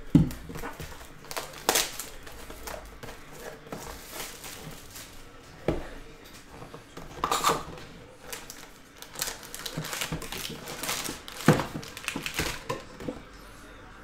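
A sealed trading-card hobby box being unwrapped and opened by hand, and its foil packs lifted out and stacked: irregular crinkling of plastic wrap and foil, with scattered knocks of cardboard and packs on the table, the sharpest right at the start and another near the end.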